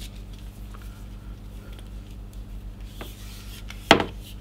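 A long black power cable being handled and pulled through the hands, a faint rubbing and rustling, with a small click about three seconds in and a sharp knock near the end. A low steady electrical hum lies underneath.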